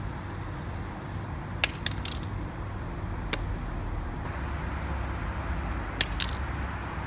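Steady low background rumble with a few short, sharp clicks and taps. The loudest click comes about six seconds in, followed quickly by another.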